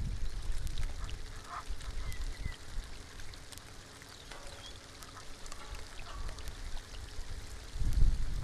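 Rain falling on a pond, with many separate drops ticking against a steady patter. A low rumble is strong at the start, dips through the middle and swells again near the end.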